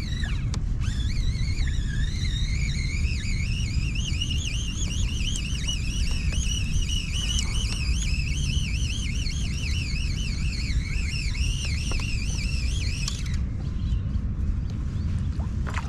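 Fishing reel's drag whining as a hooked fish pulls line: a wavering, high-pitched whine that starts about a second in and cuts off sharply near the end. A low rumble runs underneath throughout.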